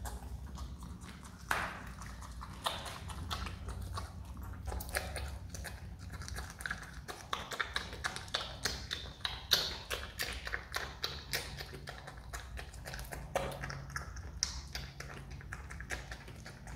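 Himalayan marmot chewing and smacking on pieces of tangerine: a rapid, irregular run of small clicks.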